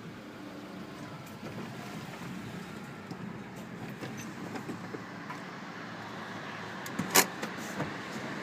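Car running at low speed, a steady low engine hum, with a sharp click about seven seconds in.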